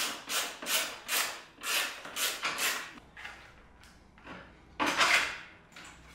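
Yamaha MT-09's stock plastic rear fender assembly being worked loose and pulled off the tail: plastic rubbing and scraping against the frame in rhythmic strokes about two a second for the first three seconds, then quieter, with one louder scrape about five seconds in.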